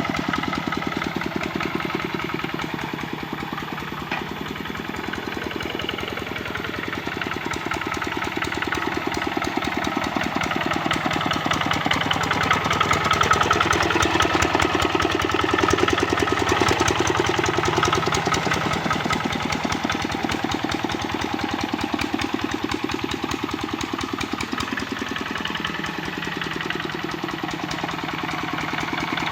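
Kubota RD65 single-cylinder diesel engine of a two-wheel hand tractor running steadily with a rapid, even knocking, pulling a harrow in low gear. It grows louder around the middle, then settles back.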